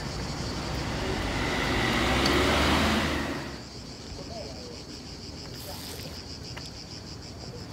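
A car passing, its rushing noise swelling over about three seconds and then dropping away, over a steady high pulsing buzz of cicadas that runs on throughout.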